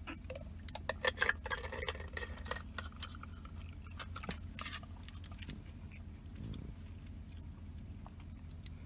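Close-miked gulping and swallowing as a drink is taken from a plastic bottle, loudest about a second in. This is followed by fainter mouth sounds and sparse light clicks as the bottle is set down and chopsticks are picked up, over a steady low hum.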